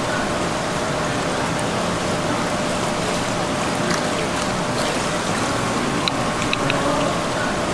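Steady rush of running water at a seafood stall's live tanks, with a faint steady hum and a few light clicks near the end.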